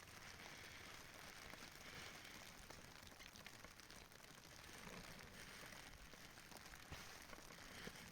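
Near silence: faint steady hiss with a few faint ticks.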